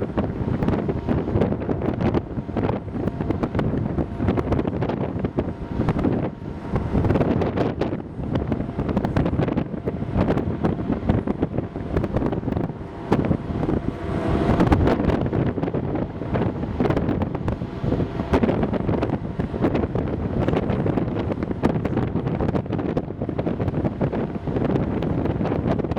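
Wind buffeting the microphone in uneven gusts over a steady low rumble, with a brief faint hum in the middle.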